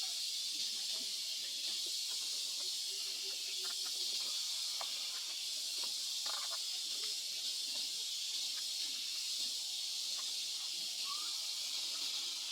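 Steady high-pitched hiss of outdoor ambience, with faint scattered clicks and a brief rising chirp about eleven seconds in.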